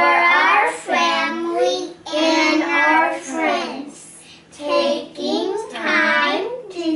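Young children singing together in short phrases with brief pauses between them: a sung grace said over a meal while holding hands around the table.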